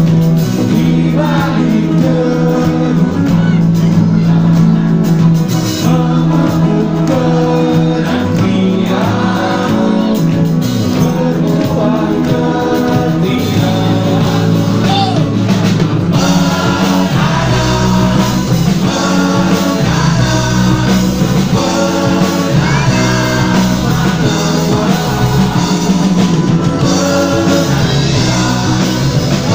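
A live band playing a song through a stage PA: singing over acoustic guitar, a second guitar and drums. The music gets fuller in the low end about halfway through.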